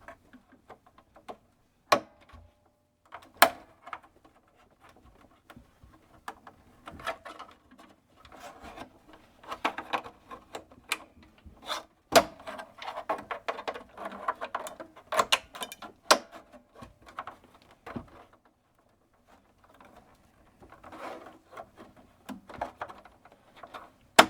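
Plastic front bezel of a Hantrex 313H monochrome monitor creaking and rubbing as it is forced against its latch tabs, with a few sharp clicks and snaps among irregular crackling as the plastic works loose.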